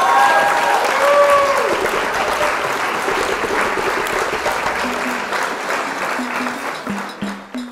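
Crowd applause with a brief cheer early on, fading gradually. Background music with short repeated low notes comes in about five seconds in.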